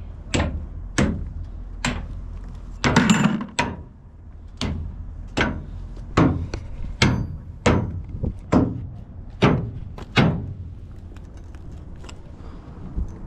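About a dozen heavy hammer blows on steel as rail spikes are worked loose from wooden ties, coming roughly one a second with a longer rattle of strikes about three seconds in, then stopping about ten seconds in.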